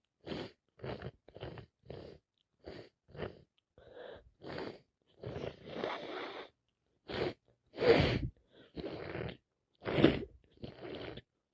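A person with a cold sneezing over and over in a long run of short bursts, about two a second at first, with the loudest sneezes about eight and ten seconds in.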